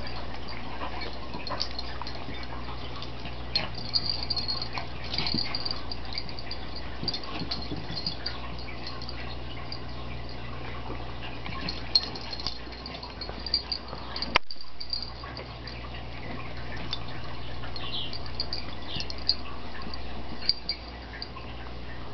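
Chihuahua and cat play-fighting on carpet: scattered scuffles and light taps of paws and bodies, over a steady low hum. The sound cuts out briefly a little past halfway.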